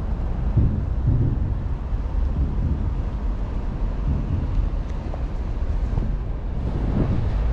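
Wind buffeting the microphone: a low, uneven rumble that swells in gusts, including about a second in and again near the end.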